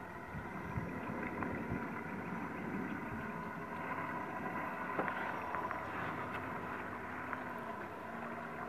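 A small boat running along a river: a steady low motor hum mixed with water noise, with a few light ticks.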